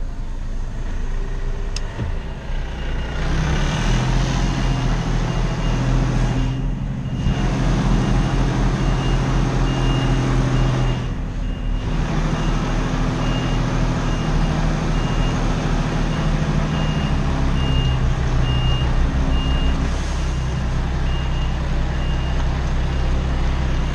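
Truck reversing: its diesel engine runs steadily at low revs while the reverse alarm beeps about once a second.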